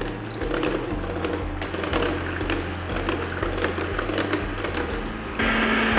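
Electric hand mixer running, its twin wire beaters whipping cream in a glass bowl: a steady motor whir with light ticks, getting louder about five seconds in.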